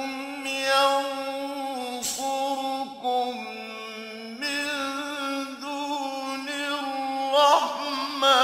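Solo male voice chanting Quran recitation in a slow, melodic tajweed style, holding long notes. Near the end it draws out one long note with a wavering, ornamented pitch.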